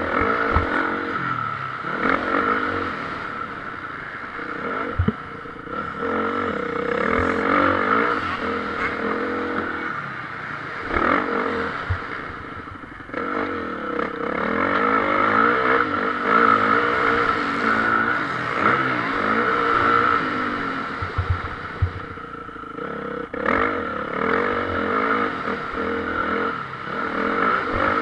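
Motocross bikes running on the track, their engines revving up and down again and again, with a few sharp knocks.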